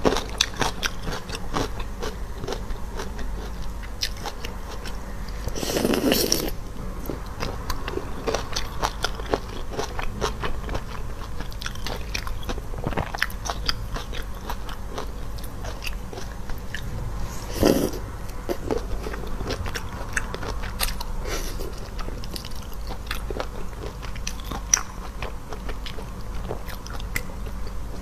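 Close-miked eating sounds: biting and chewing with wet crunches, clicks and crackles, and two longer, louder noisy swells about six seconds in and near eighteen seconds.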